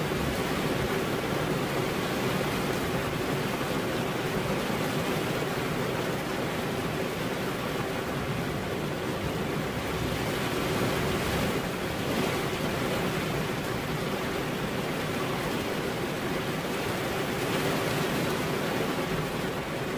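Steady rain falling on a car windshield, an even hiss with no separate drops or thunder standing out.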